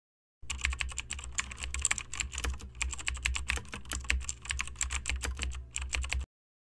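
Typing sound effect: rapid, irregular keyboard key clicks over a low steady hum, accompanying text typed out on screen. It starts suddenly about half a second in and cuts off sharply near the end.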